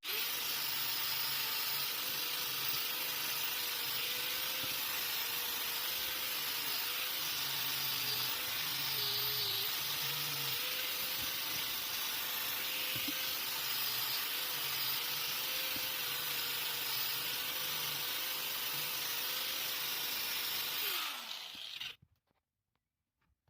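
Motor-driven wire brush wheel running steadily while rust is scrubbed off small hand tools, with a whine that wavers slightly in pitch. About 21 seconds in it is switched off and winds down with a falling whine, then near silence.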